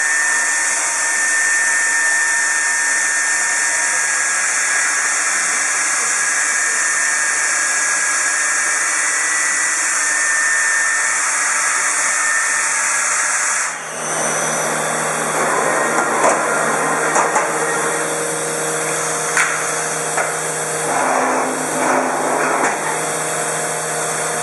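Shoda NC router trimming a pressure-formed plastic keyboard cover, with a steady high-pitched whirring noise. About 14 seconds in the sound changes abruptly to a lower hum with irregular bursts of cutting noise.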